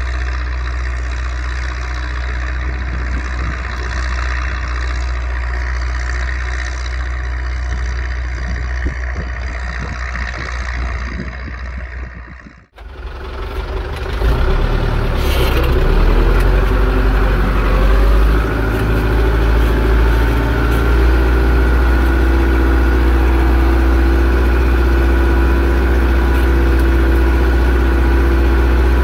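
Zetor 6245 tractor's diesel engine running steadily while pulling a plough. About halfway through the sound drops out abruptly for a moment. It returns louder, the engine pitch rises over a couple of seconds and then holds steady at the higher speed.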